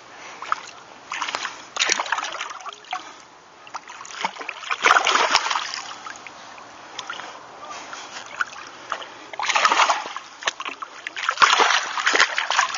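A hooked fish splashing at the water's surface at the bank as it is brought in, in several loud bursts: about a second and a half in, around five seconds, near ten seconds and again near the end.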